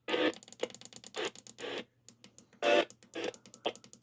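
Short snatches of radio audio cutting in and out as a radio is tuned across stations, each fragment a fraction of a second long and broken off abruptly by dead silence.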